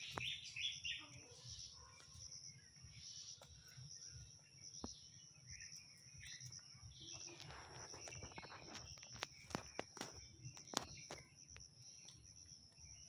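Steady high insect drone with a few bird chirps in the first second. In the second half comes a rustle of dry bamboo leaves and a run of sharp clicks as the fishing net around the snake is worked free by hand and scissors.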